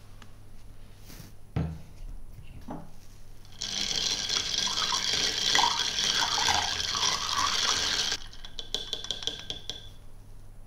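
Ice cubes clinking and rattling in a tall glass as a cocktail is stirred with a chopstick: a couple of knocks first, then a steady rattle for about four seconds in the middle, trailing off into a few quick light clinks.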